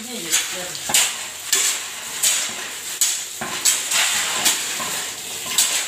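Steel shovel scraping and chopping through a heap of damp concrete mix of sand, gravel and cement on the floor, in repeated gritty strokes, one to two a second, as the mix is turned by hand.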